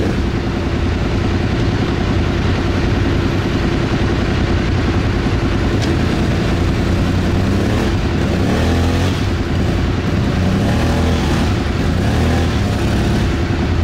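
Quad (ATV) engine running steadily under load, a constant drone that holds its pitch.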